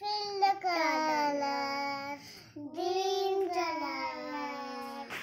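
A young girl singing: two long held phrases with a short break about two seconds in, each sinking in pitch toward its end.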